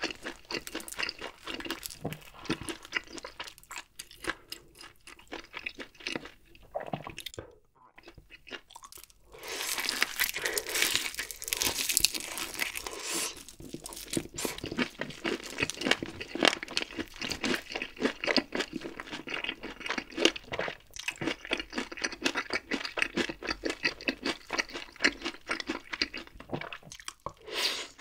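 Crisp crunching and chewing of Kyochon Honey Combo honey-glazed fried chicken close to the microphone: rapid crackles of the crust with each bite. The crunching is densest and loudest from about ten to fourteen seconds in, with a brief pause just before eight seconds.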